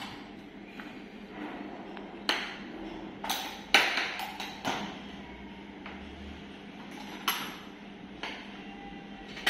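Metal clamps on the lid of a wooden butter-churning barrel being knocked and latched shut: about seven sharp metallic knocks at uneven intervals, some ringing briefly, the loudest about four seconds in.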